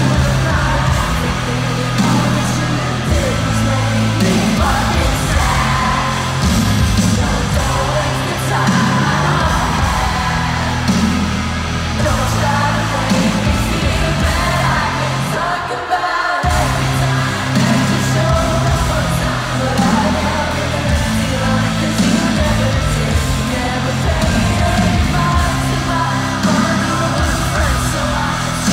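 Live band in an arena, loud and full: heavy held bass and rock backing under a sung lead vocal. The bass drops out for a moment about halfway through, then the band comes back in.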